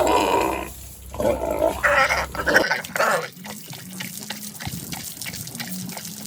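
Pigs squealing and grunting in the first half, two loud calls with rising and falling pitch, then quieter scattered clicks.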